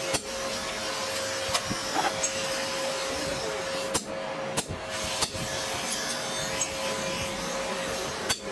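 Steady whir of a forge air blower with a constant hum, broken by several sharp strikes at irregular intervals: a hammer driving a hot-cut chisel into the glowing leaf-spring steel on the anvil.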